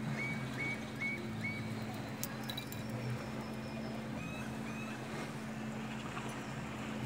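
Steady low hum of a distant boat motor running out on the water. A bird chirps four times in quick succession near the start and twice more around the middle.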